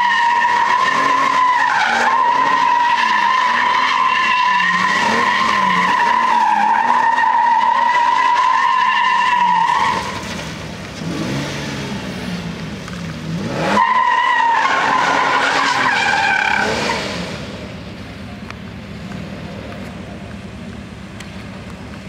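Toyota Tacoma X-Runner's V6 revving hard while the rear tyres squeal steadily through donuts for about ten seconds. The squeal then drops out while the engine revs rise and fall. A second burst of tyre squeal follows. After about seventeen seconds the engine settles to a lower, quieter run.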